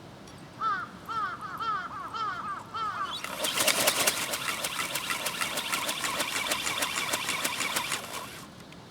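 A bird gives a quick run of short, rising-and-falling calls. Then the ornithopter's geared brushless motor and flapping wings start up as a loud rasping whine with rapid even ticking, about seven a second. This runs for about five seconds and cuts off suddenly as the power is cut for gliding.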